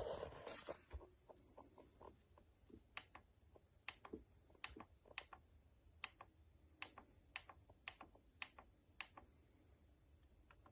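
Faint, sharp clicks of plastic buttons on a digital alarm clock being pressed one at a time, roughly one or two a second at uneven spacing, after a brief rustle of handling at the start; the clicks stop shortly before the end.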